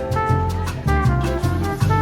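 Upbeat background music with brass, a plucked bass line and a steady beat, in a jazzy Latin style.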